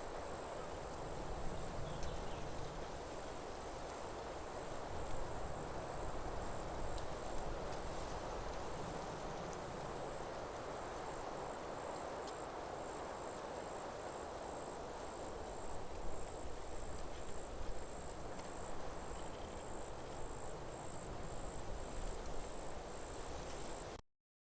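Night chorus of crickets: a steady high-pitched trill over an even background hiss, cutting off suddenly near the end.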